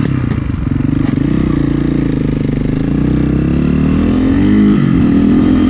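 Snowbike engine (a dirt bike converted with a snow track) running under throttle as it pulls along a snowy trail, its pitch rising and falling with the throttle.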